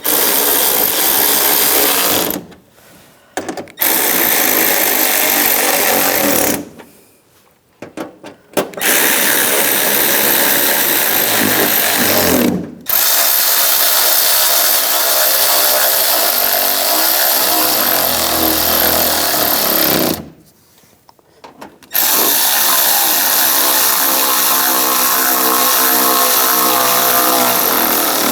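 Handheld power tool running bolts down tight: five runs of several seconds each, with short pauses between them.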